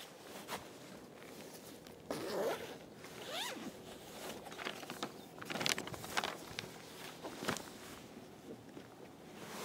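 Zipper on a tent carry bag being pulled open in several short strokes, with fabric handling and paper rustling as the bag is opened.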